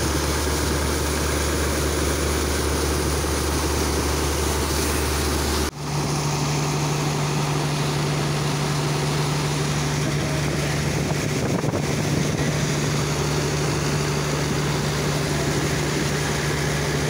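Steady hum of a high-power, Japanese-made pump engine, under the rush and splash of high-pressure water jets washing sand out of a barge hold. About six seconds in the sound breaks off for a moment and resumes with the hum at a higher pitch.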